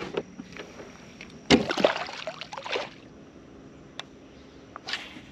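Water splashing and sloshing at the kayak's side for about a second and a half, starting about a second and a half in, as a white bass is put over the side into the river. A single sharp click follows near four seconds in.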